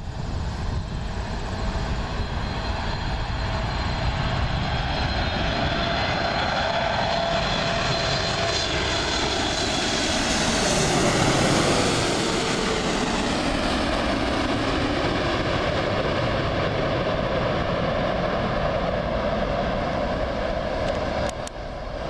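Lufthansa Boeing 747-8's four GEnx turbofan engines on landing approach. The jet noise builds to its loudest as the airliner passes overhead about eleven seconds in, with a whine that drops in pitch, then carries on as a steady roar as it moves away. There is a short dip near the end.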